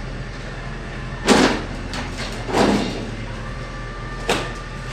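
Three loud knocks about a second apart, over a steady low hum.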